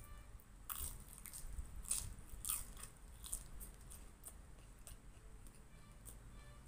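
Close-up crunching and chewing as a crisp fried lumpia spring roll is bitten and eaten, with several sharp crunches in the first three seconds and quieter chewing after.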